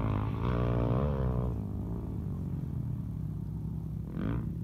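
Off-road vehicle engine revving up and down, then running steadily, with another short rev near the end.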